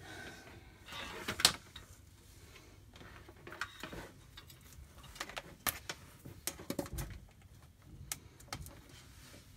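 Scattered clicks, taps and rustles of a phone camera being handled and repositioned, with the sharpest click about one and a half seconds in.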